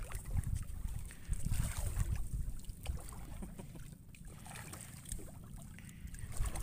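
Wind rumbling on the microphone over water lapping and splashing at the side of a small fishing boat, with scattered light knocks and clicks as a handline is worked over the side.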